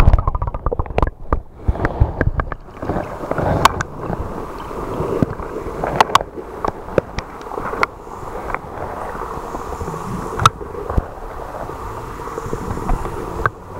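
Camera held in shallow sea water: water sloshing and gurgling around the microphone, with irregular knocks and splashes as it moves in and out of the water.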